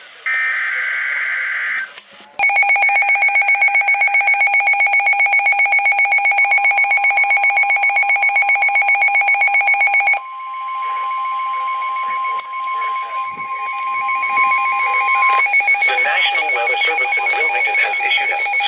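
Emergency Alert System warning signals: a short warbling digital header burst, then a loud, rapidly pulsing alarm beep for about eight seconds. A steady warning tone runs under the beeps, continues on its own once they stop, and cuts off about fifteen seconds in, leaving crackly noise.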